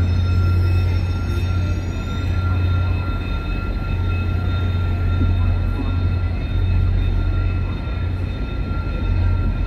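A VIA Rail passenger train rolling slowly through a covered station: a steady low drone and rumble with a thin, steady high whine over it. Faint gliding squeal tones sound during the first two seconds or so.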